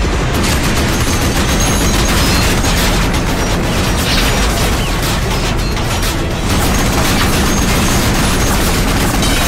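Dense action-film sound mix: rapid gunfire and booms over a loud, steady rumble of machinery.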